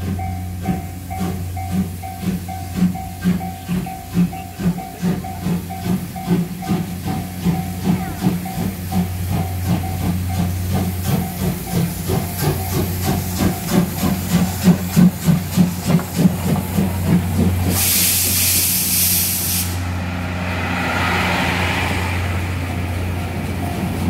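Level crossing alarm ringing with a steady pulsing as the C58 steam locomotive approaches, the pulses growing louder as it nears. About eighteen seconds in comes a loud burst of steam hiss lasting about two seconds as the locomotive passes the crossing, then its coaches roll by.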